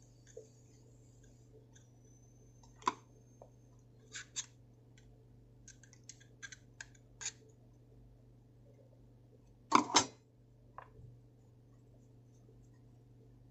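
Light, scattered clicks and taps of the small metal parts of a Zippo-style lighter being handled while its cotton packing and wick are set, with a louder double knock about ten seconds in.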